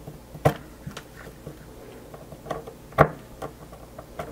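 Light clicks and knocks from a metal disc electrode being handled and pressed on an anti-static mat, irregular and scattered, with the loudest knock about three seconds in.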